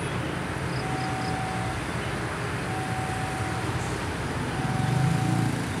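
Level-crossing warning tone, one steady note sounding for about a second and then pausing for about a second, over and over. Under it runs the low rumble and engine drone of the Prameks diesel multiple unit rolling slowly into the station, which grows louder near the end.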